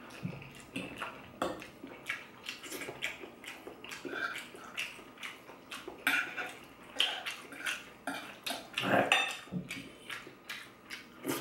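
Metal fork clinking and scraping irregularly against a ceramic plate while twirling sauce-coated pasta, with close-up wet chewing and lip-smacking of someone eating it.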